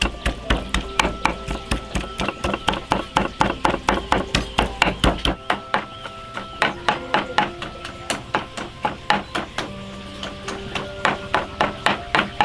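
Wooden pestle pounding soft food in a wooden mortar: dull, even thuds about three or four a second, with a short pause near the middle and another about ten seconds in. Soft background music plays underneath.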